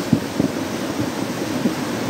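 Muddy floodwater rushing down a swollen arroyo: a loud, steady rush with irregular low rumbles.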